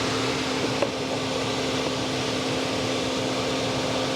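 Electric fan running steadily with a whir and a constant hum, and a single sharp click about a second in.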